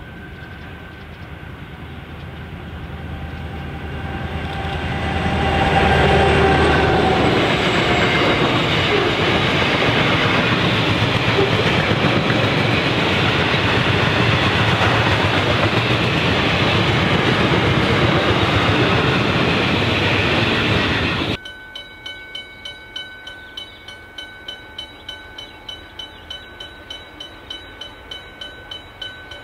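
EMD 81 class diesel locomotive coming closer and passing, getting louder over the first six seconds. Wagons loaded with concrete sleepers then roll by with steady wheel-on-rail noise. About 21 seconds in the sound cuts off abruptly to a much quieter ringing that pulses about twice a second.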